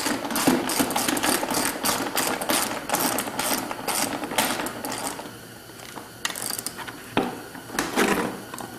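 Socket ratchet clicking rapidly as it backs out a 10 mm seat bolt on a Honda CR500, the clicking stopping about five seconds in. A few scattered knocks and rattles follow as the bolt and tool are handled.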